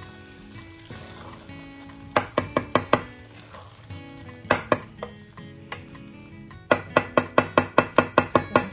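Wooden spoon stirring cooked rice in a stainless-steel saucepan and knocking sharply against the pan: a few taps about two seconds in, two more near the middle, then a quick run of about a dozen taps near the end. Background music plays throughout.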